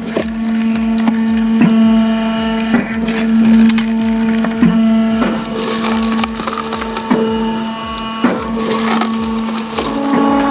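Log splitter at work: its motor hums steadily while logs crack and split apart, with a sharp crack about every second. Near the end the hum shifts to a higher pitch.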